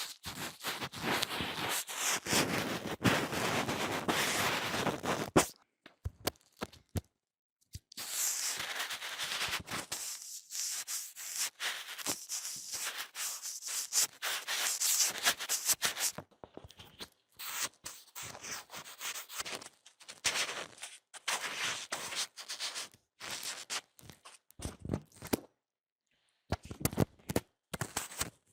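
Close-miked ASMR trigger sounds: rubbing and scratching noises mixed with sharp clicks and taps, coming in short edited pieces that start and stop abruptly, with two brief silent gaps.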